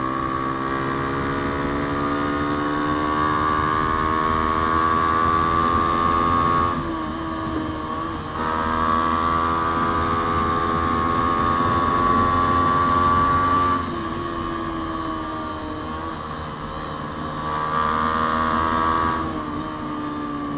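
Yamaha Sniper 150's single-cylinder four-stroke engine, breathing through an aftermarket JVT exhaust, pulling under throttle on the move with its pitch slowly rising. The revs dip briefly about a third of the way in, climb again, ease off about two-thirds through, and rise once more near the end.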